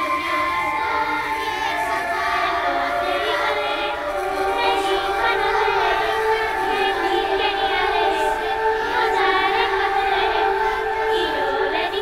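Soundtrack music with a choir of voices singing over held notes.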